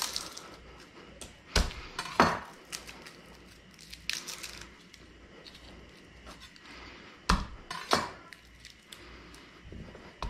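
Kitchen handling sounds as garlic cloves are prepared on the counter: scattered sharp knocks, cracks and clicks, the loudest a couple about one and a half to two seconds in and two more about seven to eight seconds in.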